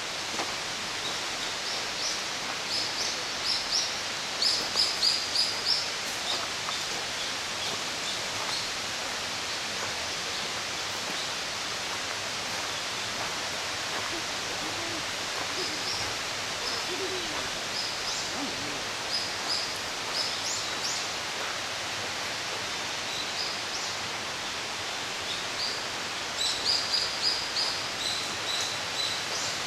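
Outdoor forest ambience: a songbird sings short runs of quick, high repeated chirps three times, over a steady rushing background.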